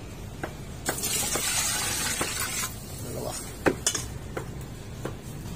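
Water poured from a metal bowl into a large cooking pot of broth, a rushing splash lasting about two seconds, followed by several clinks and knocks of metal against the pot, the sharpest one near the middle.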